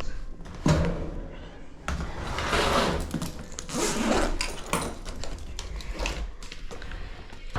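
Handling noise from tools and metal parts: a sharp knock about a second in, another near two seconds, then scraping and rattling.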